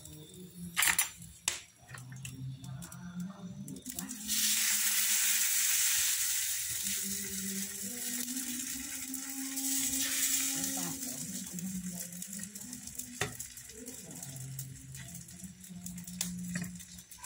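Pancake batter sizzling in a hot pan over a wood fire. The hiss starts suddenly about four seconds in and dies away some six seconds later, with a few sharp clinks of the pan and cup.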